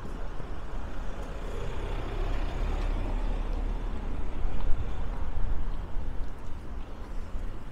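A van driving past close by, its engine and tyre noise swelling to a peak about four to five seconds in, then easing off, over a steady low buffeting of wind on the microphone.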